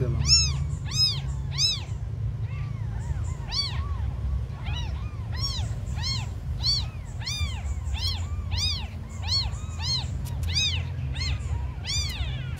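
Newborn kittens mewing in high, thin cries, one rising-and-falling call after another, about one to two a second, over a low background rumble.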